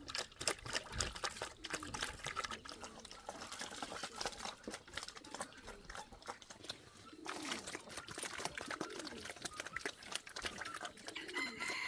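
Low animal calls repeating every second or so, with scattered clicks and rustling.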